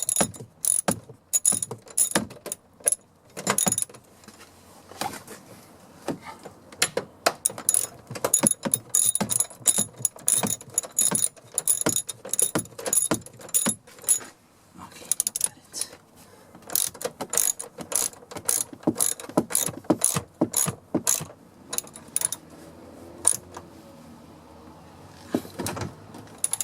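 Ratchet wrench clicking in short, irregular runs as the bolts holding the door check are driven back in, with a few metal clinks from tools and parts; the clicking thins out over the last few seconds.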